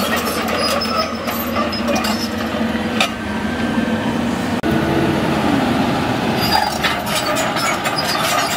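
Caterpillar 320D crawler excavator's diesel engine running steadily while its steel tracks clank and squeal as the machine travels, with frequent sharp metallic clicks and knocks.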